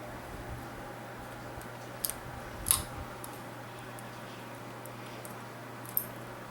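A few sharp little clicks of a small screwdriver and metal and plastic drive parts being handled while a screw is taken out of an old IDE optical drive: three clear clicks, the loudest about three seconds in. A steady low hum runs underneath.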